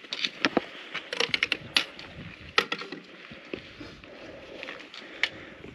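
Hikers moving over a rocky mountain trail: irregular sharp clicks and knocks of boots and trekking-pole tips striking rock, several in quick succession about a second in.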